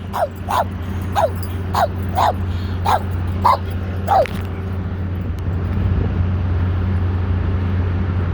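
Dog barking in a quick series of short, high yips, each falling in pitch, about two a second, stopping about four seconds in. A steady low hum runs underneath throughout.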